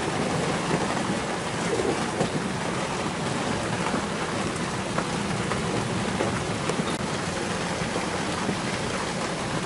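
Steady rush of storm wind and rain over choppy water, with no tone or rhythm, as a squall sets in.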